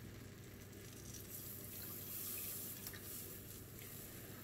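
Milk poured into a hot butter-and-flour roux in a frying pan: faint pouring and splashing, a little louder midway.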